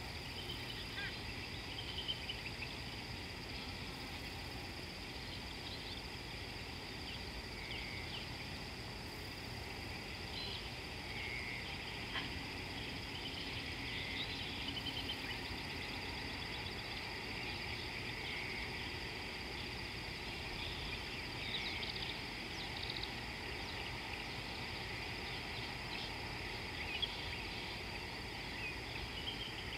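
Outdoor natural ambience by a river: a steady high-pitched insect drone with scattered bird chirps and calls throughout.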